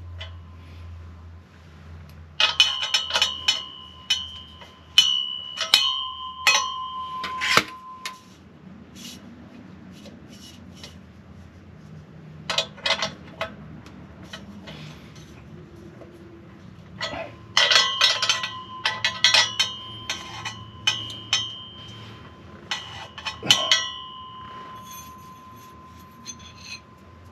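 Stainless steel exhaust pipes clanking against each other and ringing as they are handled and fitted together. There are three spells of knocks, and each leaves a high metallic ring hanging after it.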